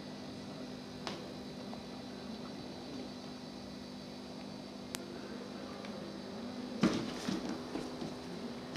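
Steady low hum with a few faint clicks; about seven seconds in, a sharp knock and then scratchy rustling as a cat paws at a cardboard box.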